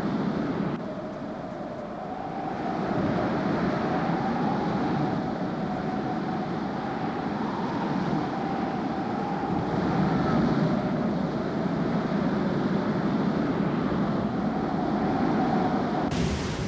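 Heavy storm surf breaking against rocks: a steady rushing roar that swells and eases, with a faint wavering tone above it.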